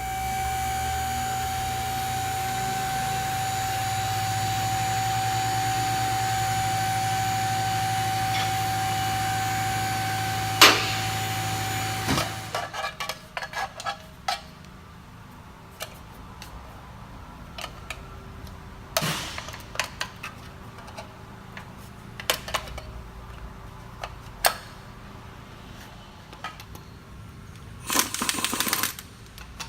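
A steady machine hum with a held tone that cuts off about twelve seconds in, followed by scattered clicks, taps and knocks of hand work with tools, and a short rattle near the end.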